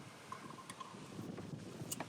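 Mostly quiet, with a couple of faint clicks from hand tools being readied to tap holes.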